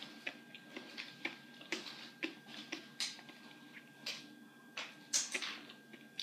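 Close-up chewing of a small, soft candy donut: irregular wet mouth clicks and short smacks, several a second, with a louder cluster about five seconds in.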